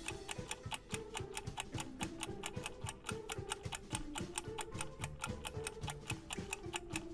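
Countdown clock ticking: rapid, even ticks of a quiz timer sound effect, over faint low tones.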